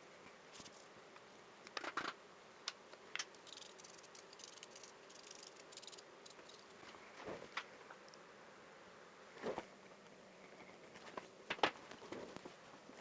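Faint steady hiss with scattered light clicks and taps, a few of them louder, at irregular intervals.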